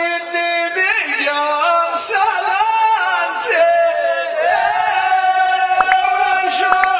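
A man's solo voice singing a verse of Amazigh tanddamt poetry into a hand-held microphone over a PA, in an ornamented melody that moves in steps and settles into a long held note about halfway through.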